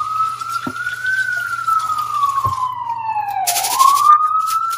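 A siren wailing, one tone gliding slowly up and down about every four and a half seconds; it is the loudest sound. Under it, tap water runs over rice in a metal mesh strainer in the sink, stopping a little past halfway, then splashing in two short bursts near the end.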